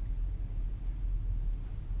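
Quiet office room tone: a steady low rumble with a few faint clicks from keyboard typing and a computer mouse.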